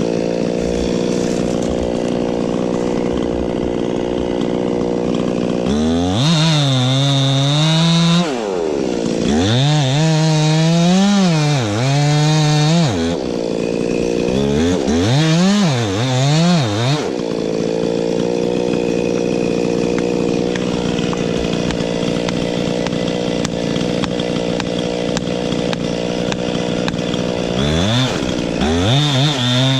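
Two-stroke chainsaw running hard while cutting into a pine tree. It holds a steady high pitch for long stretches, and several times its pitch swings up and down as the saw bogs and recovers in the cut.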